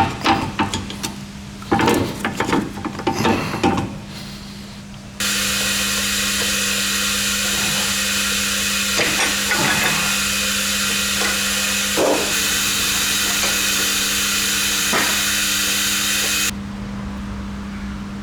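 Metal knocks and clinks of tools working on a car's front hub and axle, then a loud steady hiss that starts abruptly about five seconds in and cuts off about eleven seconds later, with a few knocks heard over it. A low steady hum runs underneath.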